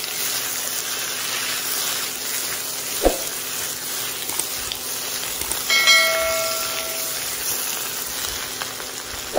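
Chayote squash and egg sizzling in a hot wok as they are stirred with a spatula, with a sharp knock about three seconds in. A brief ringing tone sounds near the six-second mark.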